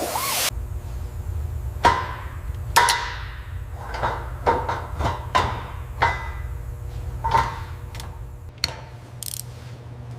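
Irregular metallic clanks and clicks of hand tools working on metal car parts, each with a short ring, over a steady low hum.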